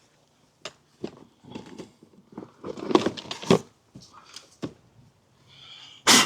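Irregular clicks, knocks and rattles of car engine-bay parts being handled and fitted back into place, with one loud sharp clack near the end.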